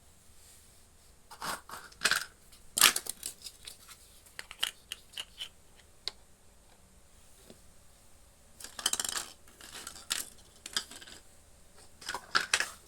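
Small plastic toy cooking-set pieces and their packaging being handled: scattered clicks and taps, with a few short bursts of rustling.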